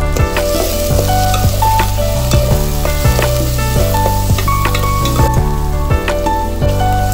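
Chopped onions and green chillies sizzling in hot oil in a pan, stirred with a slotted spatula that scrapes and clicks against the pan. Background music with a bass line plays over it.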